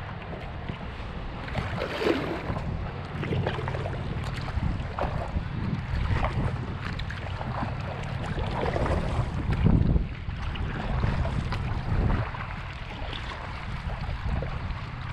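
Wind buffeting the microphone in a steady low rumble, over water splashing and lapping around a kayak in irregular bursts every second or two.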